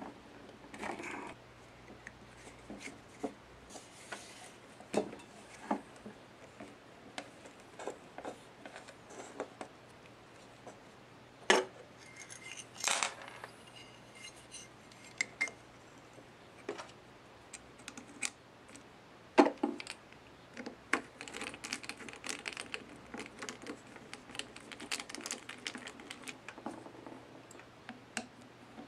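Scattered clicks, clinks and knocks of pliers, a screwdriver and metal parts of a disassembled Hitachi Koki electric polisher being handled on a wooden tabletop, with two sharper knocks about 11 and 19 seconds in.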